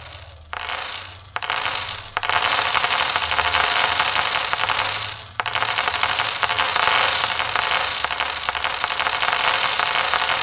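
A continuous jingling cascade of coins, like a shower of coins pouring down, over a low steady hum, with a few brief dips.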